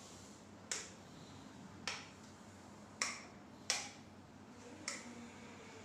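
Five short, sharp snaps, roughly a second apart.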